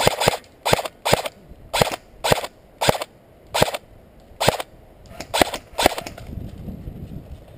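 Airsoft rifle firing single shots at an uneven pace, about nine short, sudden reports in six seconds, after the tail of a rapid burst; the firing stops about six seconds in.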